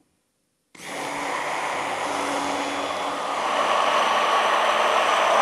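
Immersion stick blender running in a glass bowl, blending apple juice with sodium alginate powder into a smooth base for spherified fruit caviar. It starts abruptly about a second in and gets a little louder about halfway through.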